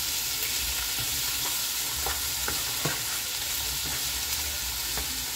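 Diced raw chicken sizzling in hot olive oil in a skillet, a steady frying hiss, with a few light clicks of a spoon against the pan as the pieces are stirred.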